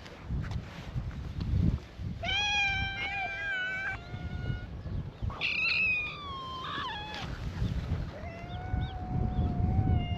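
Stray cats meowing: three long, drawn-out meows, one after another with short gaps, over a low rumbling background.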